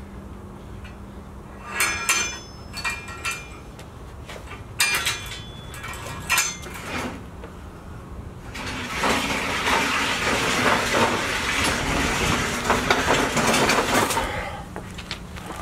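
Rogue Fitness Sled Dog 2.0 steel weight sled: a few metal clanks and clinks about 2 s and 5 s in, then from about 9 s a loud steady scrape as the sled is dragged over the asphalt driveway, stopping about 14 s in.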